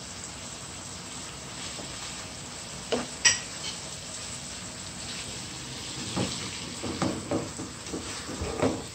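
Pineapple, bell pepper and scallion in barbecue sauce sizzling in a pot while being stirred. A couple of sharp, ringing clinks of the stirring utensil against the pot come about three seconds in, and more knocks and scrapes of stirring fill the last few seconds.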